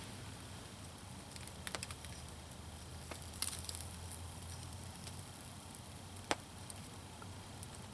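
Small wood campfire crackling, with a few scattered sharp pops, the sharpest about six seconds in.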